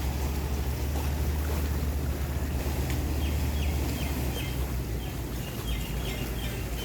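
A boat engine running steadily with a low hum. A string of quick, high chirps comes in about halfway through.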